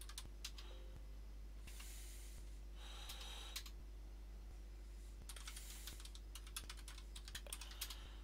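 Computer keyboard typing in bursts of quick keystrokes, with a pause in the middle, over a steady low hum.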